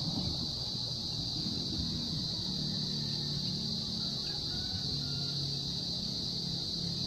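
Steady high-pitched chorus of insects, a continuous shrill drone, over a low rumble.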